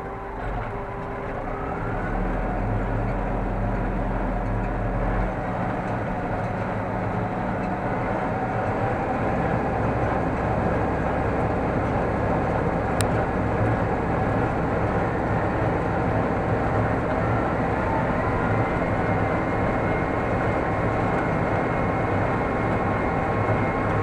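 Massey Ferguson 6150 tractor's diesel engine running steadily under load, driving a Welger AP53 small square baler off the PTO while it picks up and bales hay. The sound grows louder about two seconds in and then holds steady.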